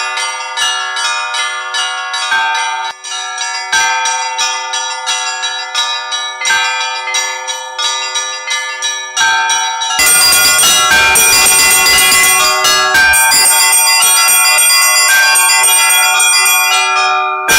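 Russian Orthodox church bells rung by a bell ringer: quick rhythmic strokes on the higher bells, about three a second, over the steady hum of a larger bell. About ten seconds in the peal turns louder and fuller as deeper notes join.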